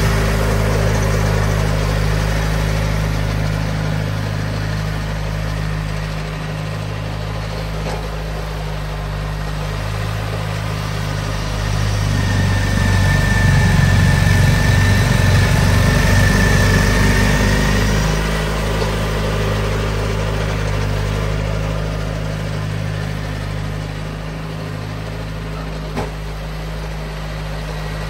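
1992 John Deere 318 garden tractor's two-cylinder Onan engine running steadily under load, driving a front-mounted snowblower through wet, heavy snow. It grows louder for several seconds in the middle, with a high whine over the engine, then eases off.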